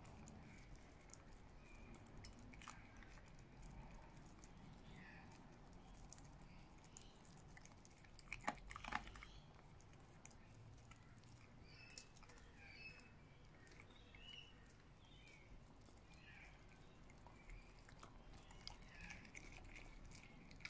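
Faint wet chewing and mouthing of a Belgian Shepherd (Groenendael) eating chicken mince off a spoon. A brief, louder run of clicks comes about eight and a half seconds in.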